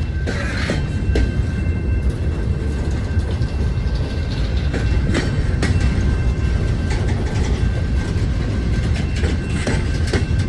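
Freight train rolling past: a steady heavy rumble of the cars with scattered knocks and clicks from the wheels over the rail.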